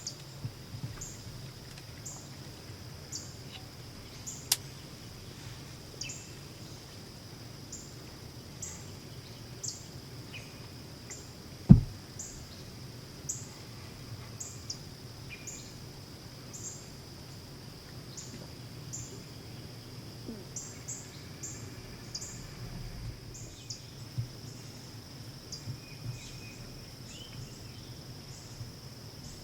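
Woodland ambience: a steady high buzz, typical of insects, with short high chirps repeating about once a second. One sharp click about twelve seconds in is the loudest sound.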